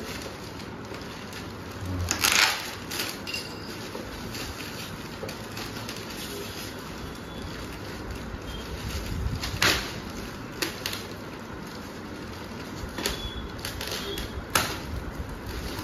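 Clear plastic wrapping being handled and pulled around a boxed speaker, rustling with a few sharper crackles.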